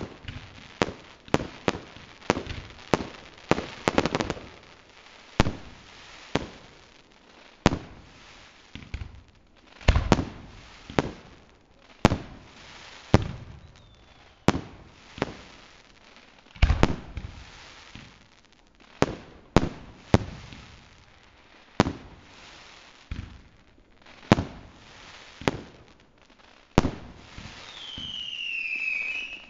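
Fireworks going off in a long series of sharp bangs, about one to two a second. Near the end, a whistling firework gives a falling whistle.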